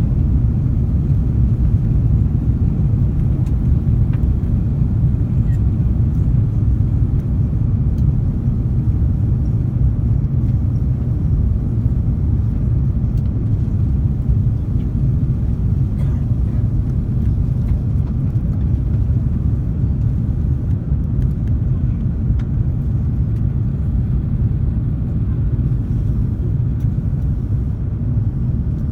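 Steady low rumble inside an Airbus A330-300's passenger cabin in flight on approach: engine and airflow noise.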